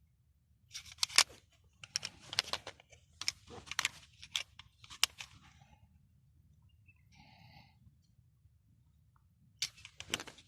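Beretta 92FS 9mm pistol being handled: a quick run of sharp metal clicks and scrapes, then a pause, and a couple more clicks near the end.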